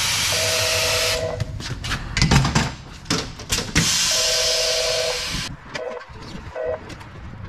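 Compressed air hissing in two long bursts, each with a faint whistle: the first stops about a second in, the second runs from about four to five and a half seconds in. Knocks and clunks of a trailer wheel being handled on a tire-changer machine fall between and after.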